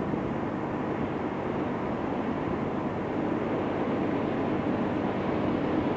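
Distant rumble of an approaching freight train's diesel locomotives (a GE C44-9W leading a C40-8M, an ES44AC and a GP9RM): a steady low rumble growing slightly louder.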